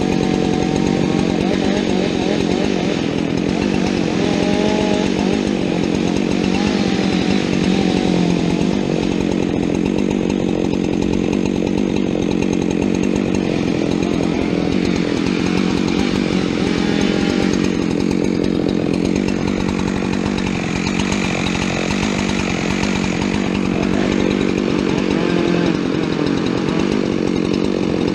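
Chainsaw running steadily at high revs, cutting wood, its pitch wavering under load. The uploader says its chain was not very sharp.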